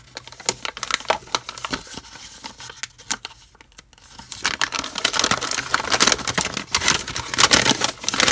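Paper rustling and crinkling with scattered sharp clicks as a folded user's manual is handled and opened out, sparse at first, pausing briefly, then denser and louder through the second half.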